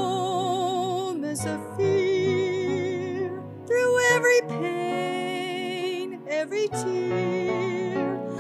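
Gospel music: a singer holding long notes with vibrato in phrases of a few seconds, over steady instrumental accompaniment.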